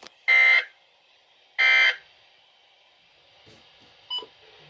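Weather-radio SAME digital data bursts: two short buzzy bursts a little over a second apart, the end-of-message code that closes a broadcast alert bulletin.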